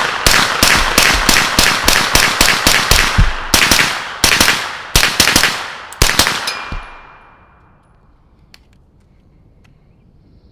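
Suppressed B&T GHM9 9mm carbine firing 115-grain Blazer ammunition: a fast string of about two dozen shots, roughly five a second with a few short pauses. It stops about seven seconds in, and the echo dies away.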